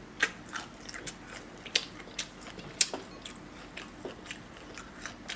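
Close-miked eating: irregular crisp crunching bites and wet chewing clicks from a mouth eating food, with a few louder crunches scattered through.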